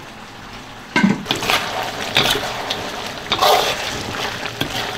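Chicken braising in its sauce in a wok, bubbling and sizzling. The sound starts suddenly about a second in, with a few knocks of a utensil against the pan.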